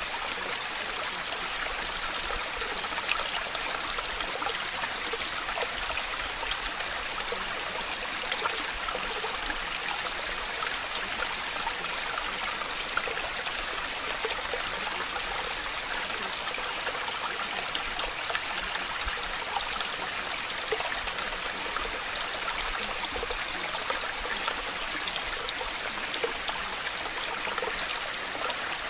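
Steady rain noise: an even hiss of falling water with faint scattered drop ticks, unchanging throughout.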